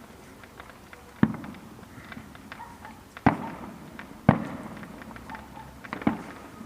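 Fireworks going off: four loud bangs a second or two apart, each trailing off in an echo, with faint scattered crackles and pops between them.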